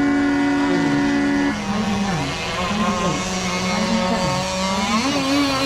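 Several radio-controlled racing catamaran boats' engines running on the water, their pitch rising and falling as they throttle up and back. One engine holds a steady high note for the first second and a half before dropping away.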